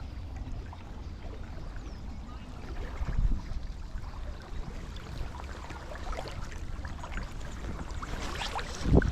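Steady rush of river water with wind rumbling on the microphone, and two louder bumps, about three seconds in and near the end.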